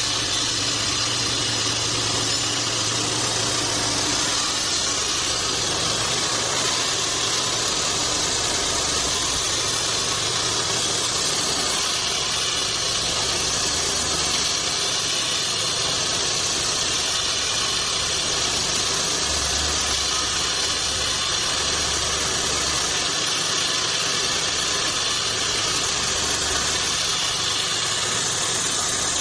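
Homemade band sawmill running steadily: a constant machine hum under an even high-pitched hiss.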